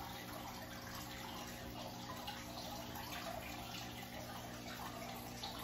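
Faint, steady trickle of water with a low electrical hum, from a home aquarium's filter.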